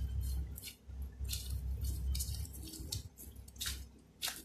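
Soft, irregular squishing and rustling, a string of short strokes, from disposable plastic gloves working sticky, butter-smeared dough on a silicone mat as the sheet is rolled up tightly into a log.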